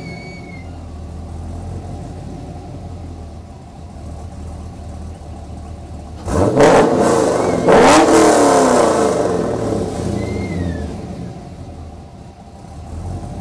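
376 cubic-inch LSX V8 breathing through long-tube headers, a 3-inch Y-pipe and a Magnaflow muffler, idling, then blipped twice in quick succession about six and seven and a half seconds in. The second rev falls away slowly back to idle.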